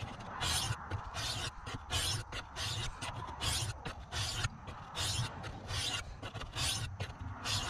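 Stainless steel knife blade stroked back and forth across the medium face of an oil stone to sharpen a dull edge: a rhythmic scraping, about one and a half strokes a second.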